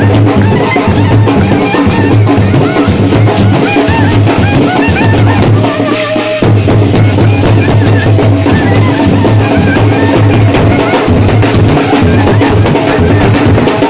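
Brass band playing a Nepali song: trumpet and clarinet carry a wavering melody over a steady, loud drum beat. The drums drop out for a moment about six seconds in, then come back.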